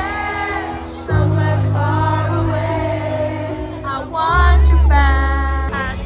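Music with a singing voice: a sung melody over held bass notes, with the bass changing a little after one second and again past four seconds.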